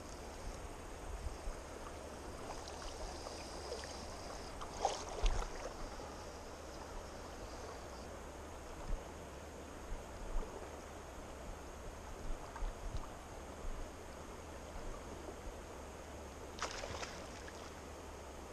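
River water running steadily, with intermittent short splashes; the loudest come about five seconds in and again near the end.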